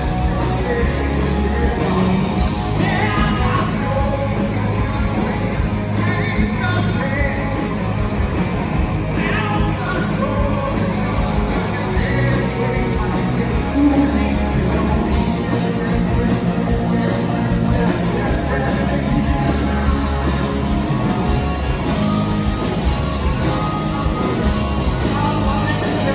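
Live rock band playing: electric guitars, bass and drums with a lead vocal, heard from the audience.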